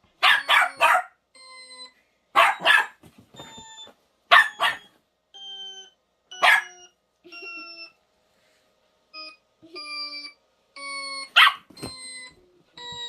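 A small mixed-breed dog barks in sharp bursts, several in a row at the start and then singly, in reaction to odd electronic sound-effect tones played between the barks. The tones are short, steady beeps at changing pitches, each about half a second long.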